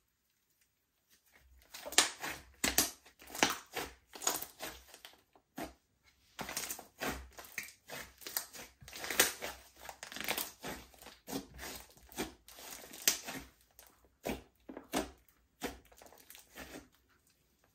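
Slime being squeezed, stretched and kneaded by hand, giving irregular sticky clicks and pops. It starts about a second and a half in, with a short pause around six seconds.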